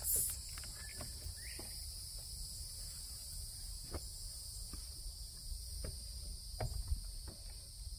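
Steady high-pitched chorus of insects, with a few soft rustles and light taps as a towel is smoothed out on the van floor.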